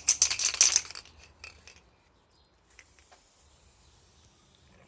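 Aerosol spray-paint can being shaken, its mixing ball rattling quickly for about a second, followed by a few faint clicks and then quiet.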